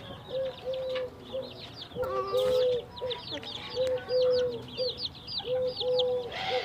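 A mother hen clucks in short, low calls, mostly in pairs, while her chicks peep continuously in high, falling chirps.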